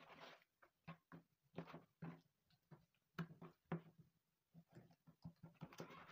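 Knife slicing raw chicken breast on a plastic cutting board: faint, irregular clicks of the blade against the board and short scraping cutting strokes.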